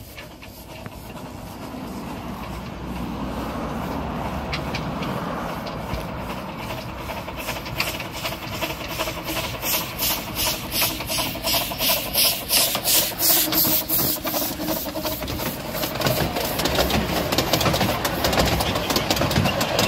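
A 12¼-inch gauge miniature steam locomotive approaching and passing close by, its steam exhaust chuffing in a quick even rhythm that grows louder as it nears. The rumble and clatter of its passenger carriages rolling past follows near the end.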